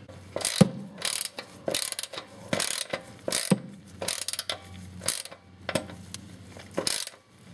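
3/8 inch socket ratchet tightening a lawnmower's oil drain plug: repeated short bursts of pawl clicking as the handle is swung back and forth, about one or two strokes a second.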